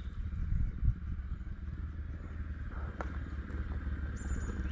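Yamaha R15 V3's single-cylinder engine running at a low idle, a steady fast putter, with a small bump about a second in. The bike has a starting fault and keeps stalling.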